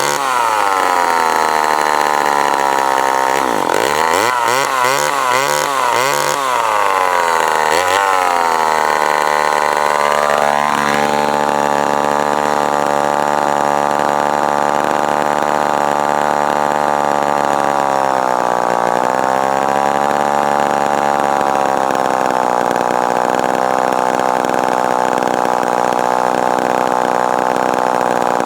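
Remington SL9 two-stroke chainsaw engine running, revved up and down several times in the first few seconds, then settling to a steady fast idle that sags briefly and recovers near the middle.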